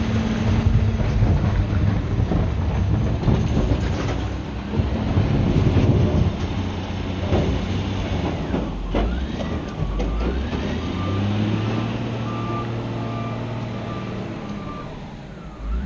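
Heavy diesel engine of a Cat 966G wheel loader running under load, with scattered knocks in the first half. From about ten seconds in a reversing alarm beeps steadily for some five seconds, the sign of a machine backing up.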